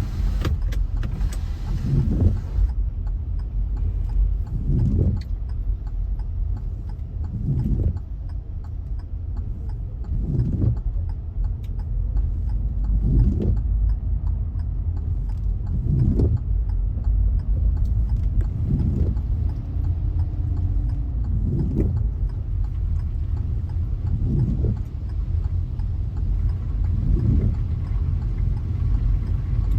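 A car running with a steady deep rumble, heard from inside, with a short swell about every three seconds.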